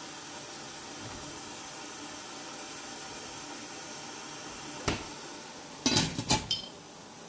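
A steady low hiss from a stovetop steamer heating its water, then a single click about five seconds in. About a second later comes a quick cluster of sharp metallic clinks with a short ring: metal cookware being handled.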